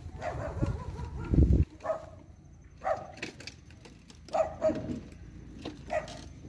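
A dog barking, short separate barks about once a second. In the first second and a half a low rumble, loudest just before the barking starts.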